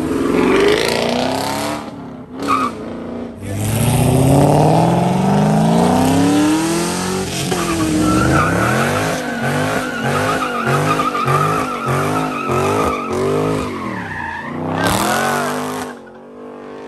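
Muscle cars, a Chevrolet Camaro ZL1 and a Dodge Charger, accelerating hard, their engines revving up in rising sweeps. In the middle an engine revs up and down rapidly over and over, about twice a second, under a steady tire squeal as the rear tires break loose.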